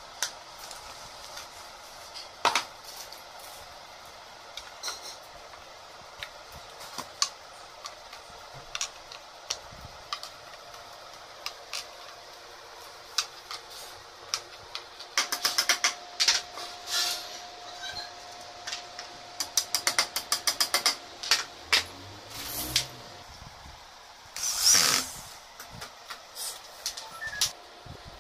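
Scattered clicks and taps of flat-pack furniture fittings and dowels being pushed and worked into particleboard panels during assembly, with two runs of rapid ratchet-like clicking past the middle. A brief louder burst of noise comes near the end.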